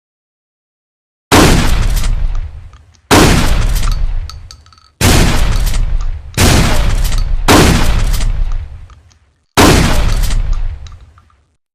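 Six trench shotgun shots, each a loud blast dying away in a rumbling tail of a second or two. The shots come unevenly, starting about a second in, with the fourth and fifth close together.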